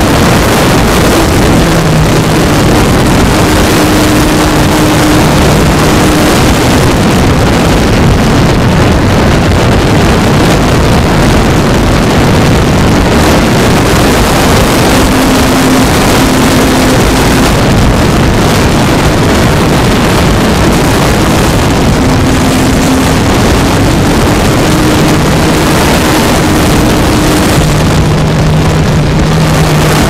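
Onboard sound of an Ultimate 3D RC aerobatic plane in flight: loud wind rush over the microphone, with the motor and propeller running underneath as a hum that shifts in pitch several times as the throttle changes.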